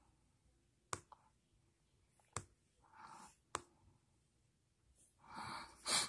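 Quiet room with a few faint sharp clicks, about a second apart, and a soft breath about three seconds in and again near the end.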